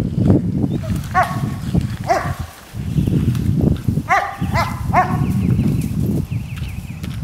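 Young Rottweiler's voice while it plays with a ball: about five short, high yelps, one about a second in, one about two seconds in and three in quick succession around four to five seconds, over a rough low rumbling that comes and goes.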